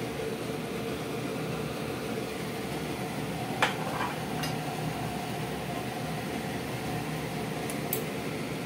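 Steady rushing hum of kitchen background noise, with one sharp clink about three and a half seconds in and two fainter clicks later.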